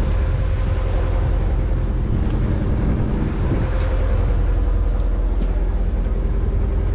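Steady low rumble of wind on the microphone aboard a small boat at sea, with a faint steady hum under it.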